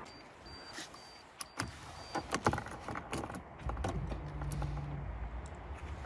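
Clicks and light rattles of keys and handling in the car's cabin. A faint high pip repeats several times in the first two seconds, and a low steady hum comes in about four seconds in.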